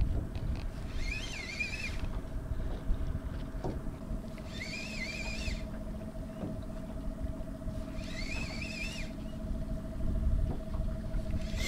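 Spinning reel cranked in short spells of about a second, roughly every three and a half seconds, its gears giving a wavering whine: the stepped retrieve of a jig. Under it are a low rumble and a faint steady hum.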